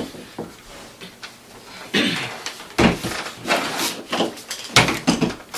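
Handling noise on a table: a rifle with its sling being picked up and handled, with several sharp knocks and papers rustling.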